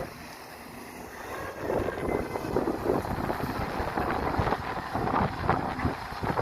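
Hyundai R220 excavator's diesel engine running, with wind buffeting the microphone. The sound drops abruptly at the start and builds back up about a second and a half in.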